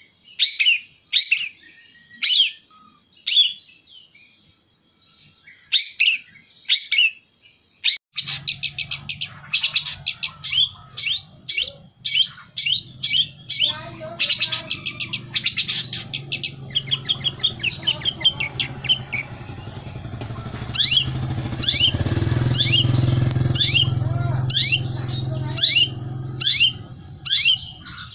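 Long-tailed shrike (cendet) singing: a run of short, sharp calls, turning into fast chattering stretches from about 8 seconds in. A low engine hum sits underneath from about 8 seconds in, growing louder a little past the middle.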